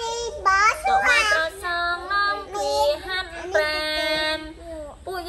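A high voice singing a slow tune of long held notes that step up and down, with a short pause near the end.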